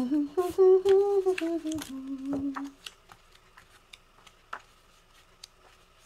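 A woman humming a short tune of a few held notes that step downward, for about three seconds. Then there are only faint rustles and clicks of sticker-book pages being handled.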